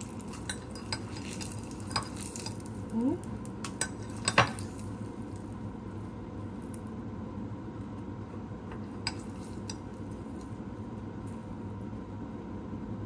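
Metal tongs stirring and scraping in a ceramic mug of sugar syrup while rice cakes are coated, with light clinks and a short rising squeak about three seconds in. The sharpest clack comes about four and a half seconds in, and a few softer taps follow as the coated pieces are set down on a board.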